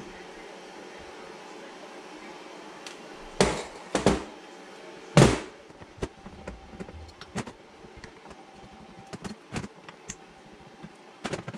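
Hand tools and small carburetor parts knocking and clicking against a stainless steel workbench while a Mikuni carburetor is taken apart. Three louder knocks come a few seconds in, the loudest near the middle, followed by lighter ticks over a faint steady hum.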